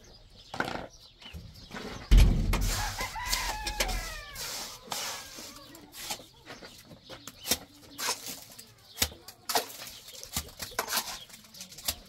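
Chickens clucking, with a rooster crowing about three seconds in, over short scrapes and knocks of a steel trowel scooping cement mortar from a wheelbarrow. A heavy thump about two seconds in is the loudest sound.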